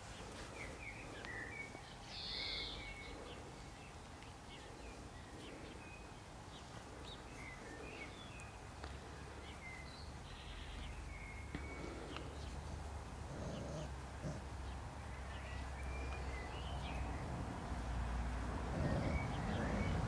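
Outdoor ambience with many short, high bird chirps scattered throughout. A low steady rumble builds from about nine seconds in and grows louder near the end.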